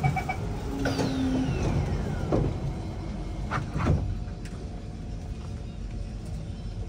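MRT train door-closing chime ending as the doors slide shut, with a falling whine and sharp thuds about two and four seconds in. Then a steady low hum of the carriage.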